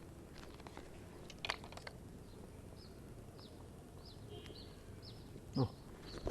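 A bird calling with short, high, downward-sliding chirps, about two a second, over faint outdoor background, with a couple of sharp clicks early on and a brief low thump near the end.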